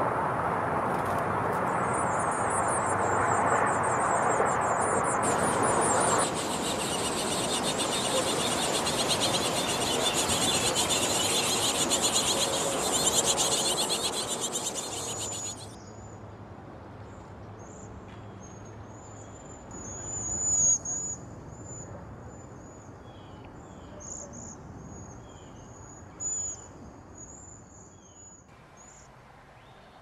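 Loud hissing, buzzing chorus with a rapid high pulsing over it, cutting off suddenly about halfway through. Then a flock of small songbirds gives thin, very high-pitched short calls, one louder call a few seconds later.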